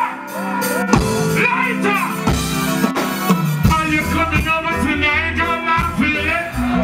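Live reggae performance through a PA: a male vocalist sings into a microphone over the band, and a heavy bass line comes in about two seconds in.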